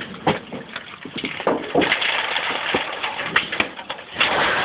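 Sheets of tin being handled and shifted over dry leaf litter: irregular knocks and crunching, with a longer, louder scrape about four seconds in.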